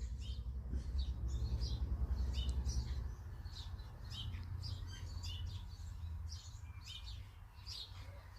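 Small birds chirping, many short high calls scattered all through, over a low rumble that is strongest for the first three seconds.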